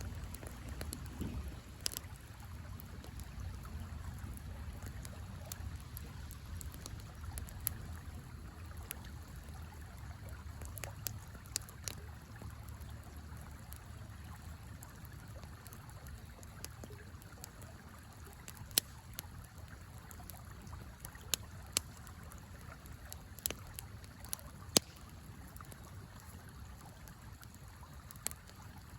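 A campfire crackling, with scattered sharp pops that are loudest and most frequent about two-thirds of the way through, over the steady low rush of a river.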